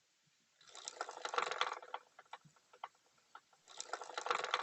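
Hero Splendor Plus motorcycle drive chain clattering with rapid clicks as the rear wheel is spun by hand, in two bursts with scattered ticks between. It is the 'katar katar' sound of a dry chain that needs oiling.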